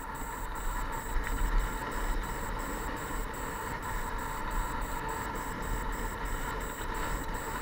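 Mountain bike riding down a dirt trail, heard through a helmet-mounted camera: steady wind rush on the microphone over the rumble of tyres on the dirt.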